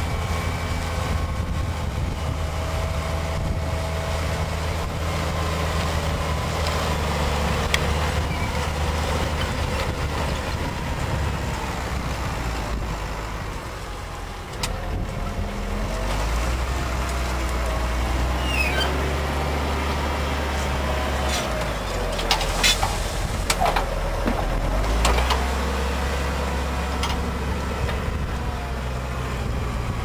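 New Holland T7060 tractor's six-cylinder diesel engine running steadily while pulling a reversible plough through the field. The engine note shifts a few times, and a few sharp clicks and knocks come about three quarters of the way through.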